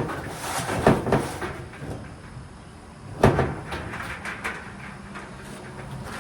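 Knocks and clunks of the dryer's cabinet parts being handled during reassembly: a few knocks at the start, one loud clunk about three seconds in, then lighter clicks.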